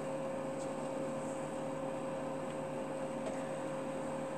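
A steady room hum with a faint held tone, with a few faint light ticks as fabric scraps are picked up and handled.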